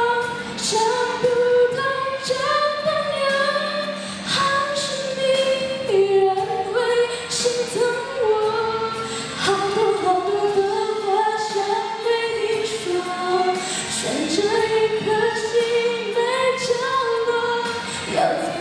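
A young woman singing a Mandarin song solo into a microphone, with held notes stepping up and down in pitch.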